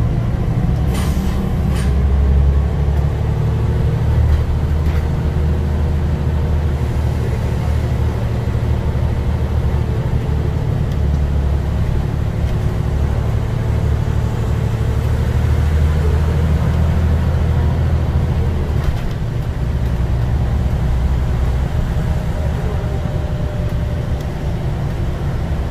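Scania OmniCity double-decker bus under way: a steady low diesel engine drone with road noise, swelling and easing as the bus speeds up and slows. Two brief clicks about a second in.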